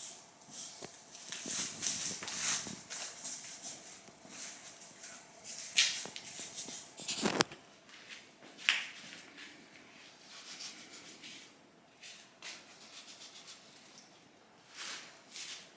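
Irregular rustling and scuffing, with two sharp knocks, the louder one about seven seconds in.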